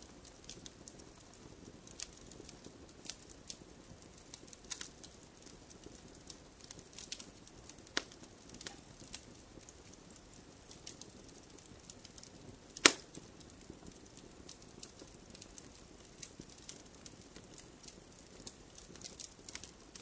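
Wood log fire in a fireplace crackling: scattered small pops and snaps over a soft steady hiss of the flames, with one loud pop about thirteen seconds in.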